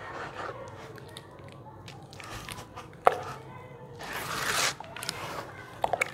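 Wet sand paste being squeezed and stirred by gloved hands in a plastic tub: irregular squelches and small wet smacks. There is one sharp smack about three seconds in, a longer sloshing swash about a second later, and a quick run of wet clicks near the end.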